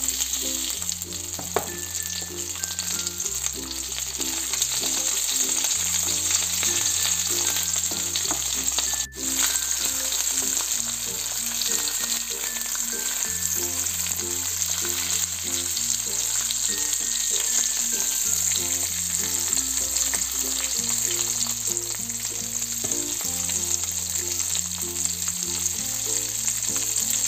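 Dried, salted round scad (daing na galunggong) frying in oil in a pan: a steady sizzling hiss. Background music with a stepping bass line plays along, and both drop out for an instant about nine seconds in.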